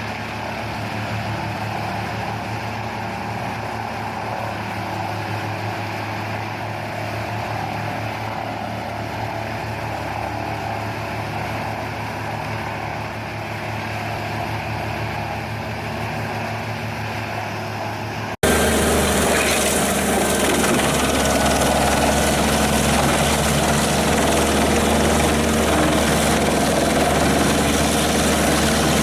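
Industrial wood chipper's diesel engine and drum running steadily. About two-thirds of the way through, an abrupt cut switches to a louder chipper engine sound with a deeper note, also steady.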